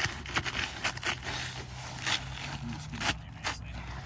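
Asphalt shingle being worked into place under the course above: a run of short scrapes and crackles as its gritty surface rubs against the neighbouring shingles, over a low steady hum.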